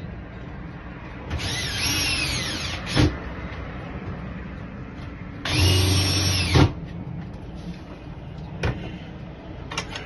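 A small power tool whirring in two bursts of about a second each, the pitch rising and falling as it speeds up and slows down. Sharp clicks follow, then two more single clicks near the end.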